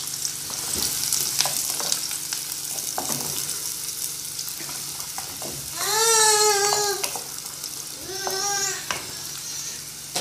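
Chopped onion frying and sizzling in a hot aluminium pot while a wooden spoon stirs it, the onion being browned. About six seconds in a high, drawn-out cry sounds, the loudest thing here, and a shorter one follows about two seconds later.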